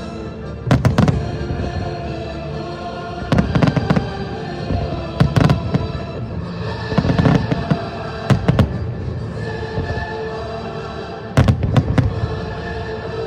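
Fireworks exploding in about six short clusters of sharp bangs, one every couple of seconds, over music with long held tones.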